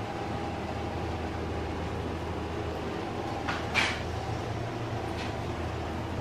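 Steady low room hum with a faint steady tone over it, broken by a short scraping knock about three and a half seconds in and a fainter one about five seconds in.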